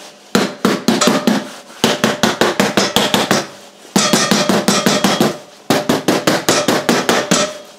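Rubber mallet tapping rapidly on the heated plastic case of a Valence 12 V lithium battery pack, about six blows a second in four quick runs with short pauses between them. The tapping is meant to knock the battery loose from its case.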